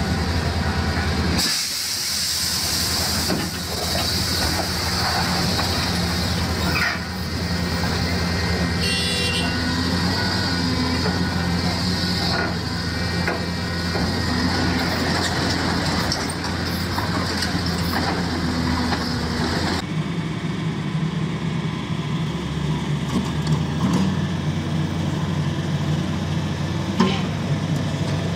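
Heavy diesel construction machinery running steadily, with a deep, constant engine note. The sound changes abruptly about twenty seconds in.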